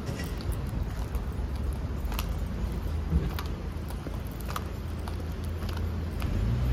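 Steady low rumble of outdoor street ambience, with scattered faint, irregular clicks and ticks.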